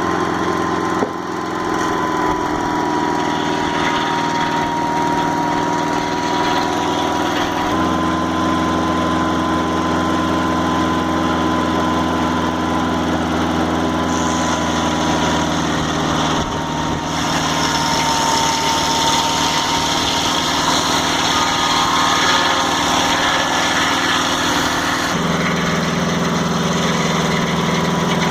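Engine of a Mobile Dimension portable sawmill running steadily with a steady high whine above it, its note shifting a few times, about a quarter of the way in and again near the end.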